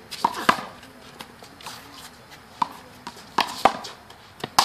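A one-wall handball rally: irregular sharp smacks of the small rubber ball being hit and striking the wall and court, about seven in all, mixed with players' running footsteps.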